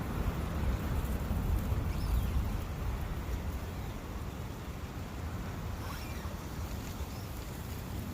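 Steady rushing of a forest brook with a deep low rumble, and a few faint bird chirps about two and six seconds in.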